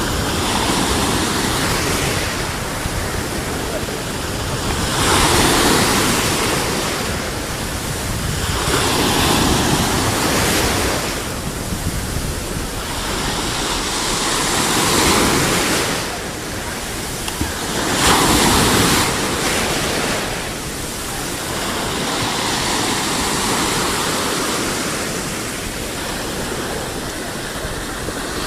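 Sea waves breaking and washing on a shore, the surf swelling louder every few seconds.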